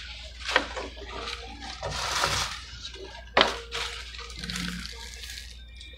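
Paper and foil fast-food wrappers and bags rustling and crinkling as they are handled and crumpled, in irregular bursts with a few sharper crackles.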